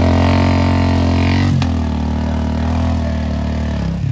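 Motorcycle engine held at high revs, its pitch dipping briefly with a click about one and a half seconds in, then easing off near the end.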